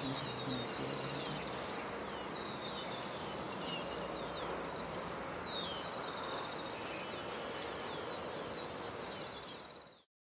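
Outdoor ambience of many birds chirping: quick, downward-sweeping calls repeated over a steady background hiss, with a faint low drone in the first second. The sound fades out just before the end.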